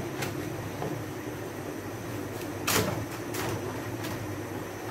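A spoon stirring milk in a pan and scraping the bottom a few times to loosen caramelised sugar stuck there, with the strongest scrape a little under three seconds in. A steady low hum runs underneath.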